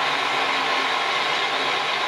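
Large mobile crane's diesel engine running steadily, an even, unbroken drone.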